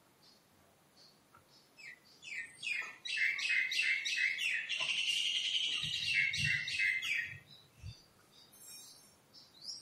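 A bird chirping in a fast run of high notes that swells into a continuous trill, then stops about three quarters of the way through.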